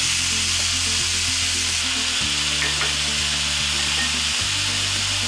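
Pieces of chicken breast sizzling steadily in hot vegetable oil in a frying pan.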